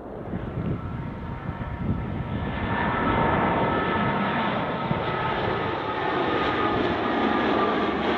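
Jet airliner on short final approach: engine rumble with a steady whine of several high tones, growing louder over the first three seconds and then holding.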